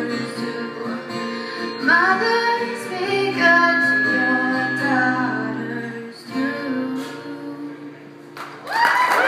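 A woman singing to her own acoustic guitar as the song draws to a close; the singing and guitar fade out, and applause with cheers breaks out near the end.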